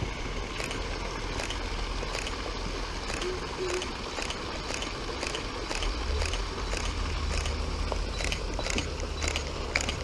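Small waterfall splashing steadily over rocks, with a low rumble that grows louder about six seconds in and scattered short clicks that come thicker near the end.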